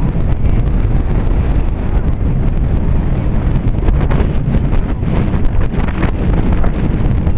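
Wind buffeting the camera's microphone: a loud, steady low rumble with many small crackles through it.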